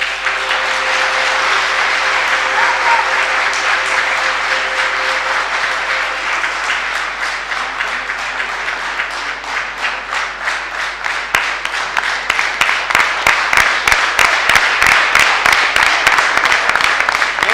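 Audience applauding: a dense wash of clapping, with individual claps standing out more sharply in the second half.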